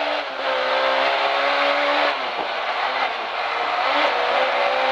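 Ford Escort Mk2 rally car's engine pulling hard under full throttle, heard from inside the cabin as the car accelerates down a straight, with a brief dip about two seconds in that fits a quick upshift.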